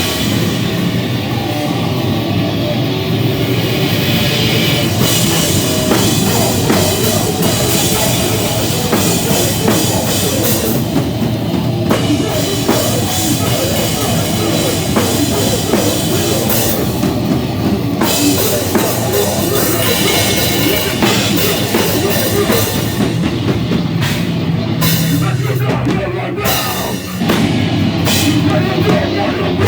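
A live heavy rock band playing loud and continuously: distorted guitar, bass and a drum kit. There is a brief drop in loudness about 27 seconds in before the full band comes back.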